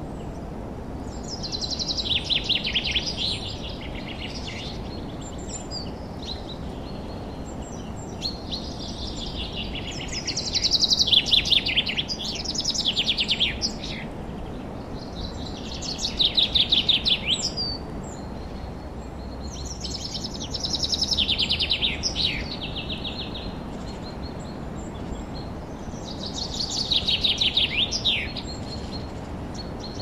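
Songbirds singing in a forest: about six short song phrases, each a quick run of notes falling in pitch, repeated every few seconds over a steady low background hiss.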